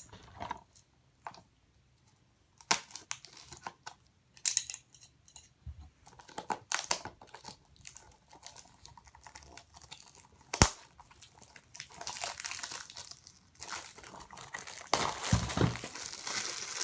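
Plastic shrink wrap being torn and peeled off a DVD case: scattered crackles and clicks at first, one sharp click a little past halfway, then steady crinkling through the second half, loudest near the end.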